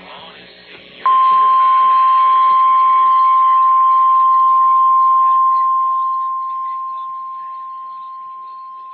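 NOAA Weather Radio's 1050 Hz warning alarm tone: one steady, piercing single-pitch tone that starts about a second in and holds, then slowly fades over its second half. It signals that a warning broadcast, here a tornado warning, is about to follow. A faint muffled background comes just before it.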